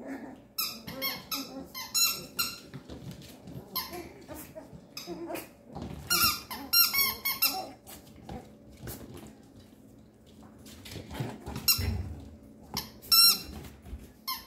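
Papillon puppies squealing and yipping in short high-pitched bursts as they play-fight, with a low thump near the end.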